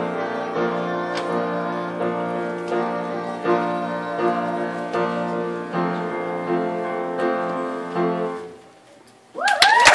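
Upright piano played solo in a steady run of notes and chords that ends a little past eight seconds in and rings away. About a second later a crowd of children bursts into loud cheering and shrieking, louder than the piano.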